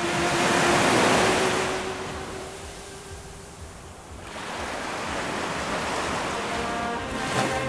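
Sea waves breaking and washing over a rocky shoreline: one surge that is loudest about a second in and ebbs away by about four seconds, then a second wash that carries on to the end.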